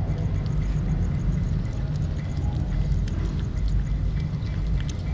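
Kittens chewing and smacking wet fish food close to the microphone, faint quick ticks over a steady low rumble that is the loudest sound.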